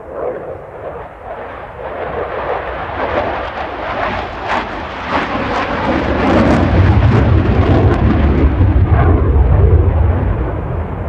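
JAS 39C Gripen fighter jet's single turbofan engine passing overhead during a display. The jet noise builds over about six seconds into a loud, deep rumble with sharp crackles, then eases slightly near the end.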